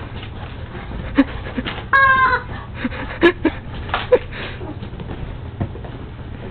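A squeaky chicken dog toy lets out one short squawk about two seconds in as a Boston terrier bites it. Several sharp knocks and rustles come from the dog chewing and shaking the toy.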